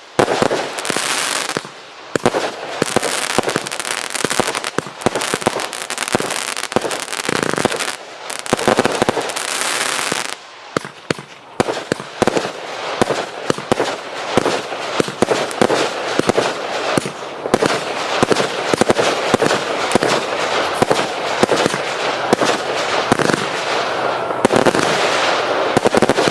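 A 400-shot firework compound firing continuously: a rapid, dense run of launch thumps and bangs with crackle, and stretches of hissing.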